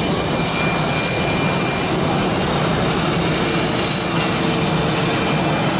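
Blue Angels F/A-18 Hornet jet engines running, a loud steady noise with thin high-pitched whines in it that holds level throughout rather than rising and falling as in a fly-past.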